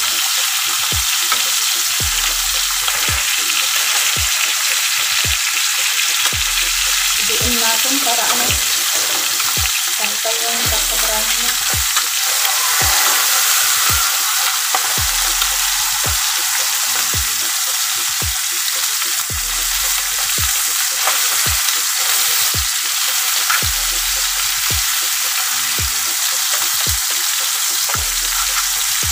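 A whole chicken frying in hot oil in a roasting pan, sizzling steadily as it browns.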